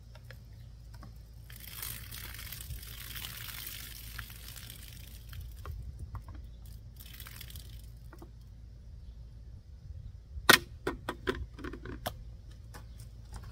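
Knife cutting test on a medium plastic bottle: a few seconds of hissing, splashing-like noise, then a sharp snap about ten and a half seconds in, followed by a string of lighter clicks and taps.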